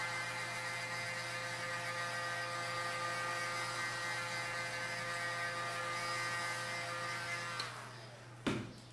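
Handheld electric heat gun blowing hot air to dry fresh paint: a steady motor whine over a rush of air. It is switched off about three-quarters of the way in and winds down. A single knock follows near the end.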